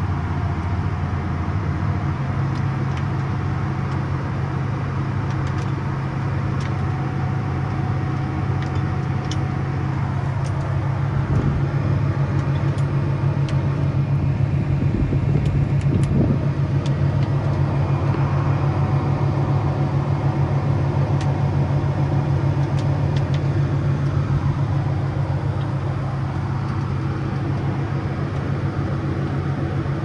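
Tractor engine running steadily under load, heard from inside the cab, while it powers a grain cart's unloading auger moving soybeans into a grain trailer.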